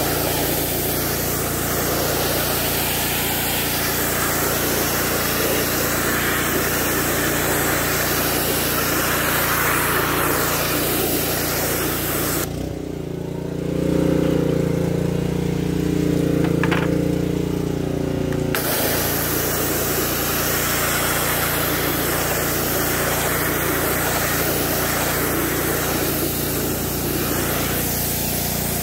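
Gas-engine pressure washer running, its water jet hissing as it sprays a truck grille. About halfway through, the spray stops for around six seconds and the engine is heard alone and louder, then spraying resumes.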